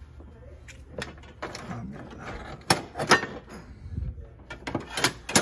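Old hand tools knocking and clinking against a wooden shelf and each other as they are handled and picked up, a series of sharp knocks that are loudest about three seconds in and again near the end.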